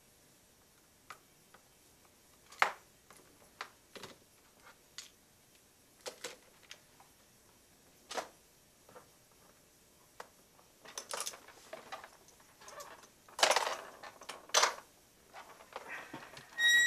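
Scattered small clicks and taps of tools and phone parts handled on a repair bench mat during a smartphone teardown, with a busier stretch of scraping and rustling from about eleven to fifteen seconds in. A short electronic beep sounds right at the end.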